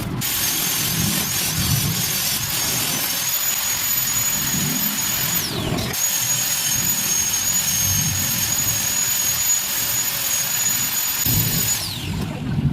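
Angle grinder running on metal: a high steady whine over a hiss of grinding. About halfway through the whine slides down as the trigger is let off, then the grinder is started again at once. It spins down again near the end.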